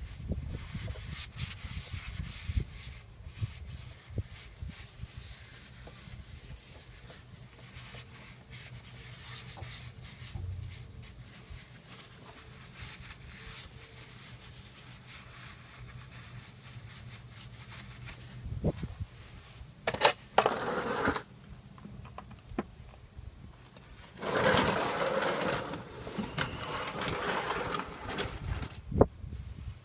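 A paper towel rubbing and wiping gear oil off the rear differential housing, with scraping and handling noises. Louder rustling comes in short bursts about two-thirds of the way through and again near the end, and a sharp click comes just before the close.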